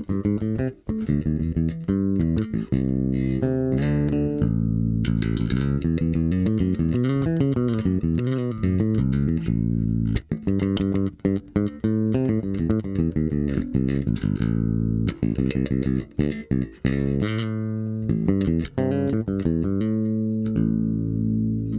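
Spector EuroBolt 4 electric bass with an Aguilar PJ pickup set, both pickup volumes and the bass and treble controls all the way up, played fingerstyle as a run of plucked notes and lines. A longer held note comes near the end.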